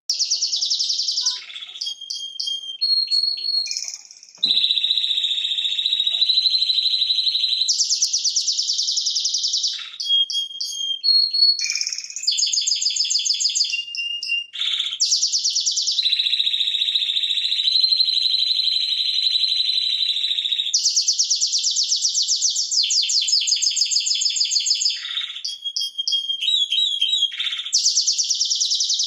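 Timbrado Español canary singing an unbroken song of high rolling trills: long held notes pulsing rapidly, switching every few seconds to faster clicking rolls and short repeated notes. It is the kind of master song used to tutor young canaries.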